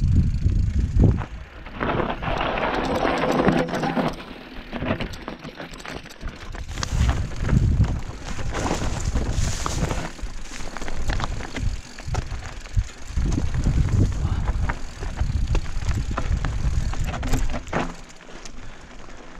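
Mountain bike descending a rocky singletrack: tyres crunching over loose stones, with the bike rattling in frequent knocks and clicks and gusts of wind rumbling on the microphone. About two seconds in there is a denser stretch of rattling that lasts a couple of seconds.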